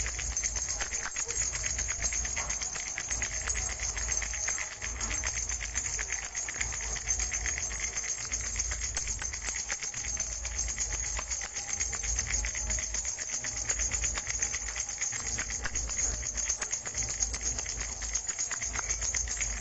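Flower-shaped baby rattle being shaken steadily, a fast, dense rattling with no pauses.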